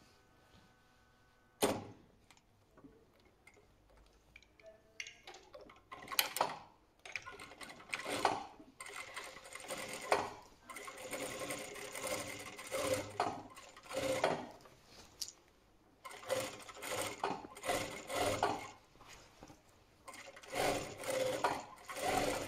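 Sewing machine stitching in short runs of a second or two, stopping and starting again and again. It is quiet for the first few seconds apart from one sharp click, and the stitching begins about six seconds in.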